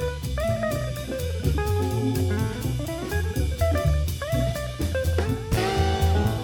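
Background music with a steady drum beat, bass and guitar, in a jazzy style.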